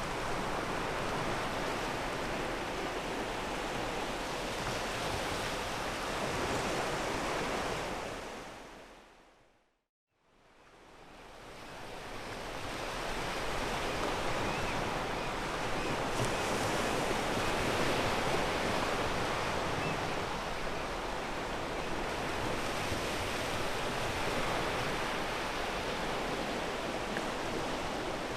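Sea waves breaking and washing over a pebble beach: a steady rushing surf. It fades down to silence about ten seconds in, then swells back up over the next few seconds.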